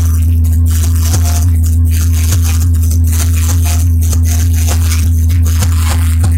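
Loud, bass-heavy amplified music from a street sound system, so loud that it overloads the phone microphone into a heavy steady low rumble with crackling distortion.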